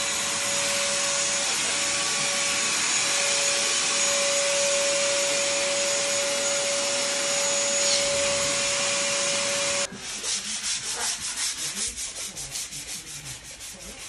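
Wet/dry shop vacuum running with a steady whine, its hose worked along the base of a wall. It cuts off suddenly about ten seconds in, and quick rhythmic rubbing strokes follow, several a second.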